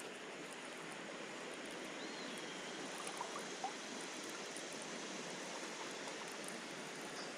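Steady wash of flowing river water.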